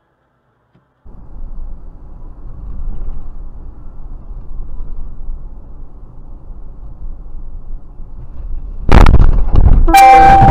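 Steady engine and road rumble inside a moving car, then about nine seconds in a very loud car collision, with a second heavy impact about a second later and a held tone ringing for about a second after it.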